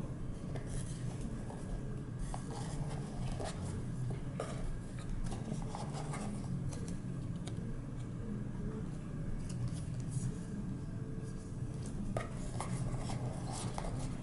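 Small clicks, taps and rustles of hands handling a Casio G-Shock watch in its cardboard presentation box and fingering its paper tag, scattered irregularly over a steady low hum.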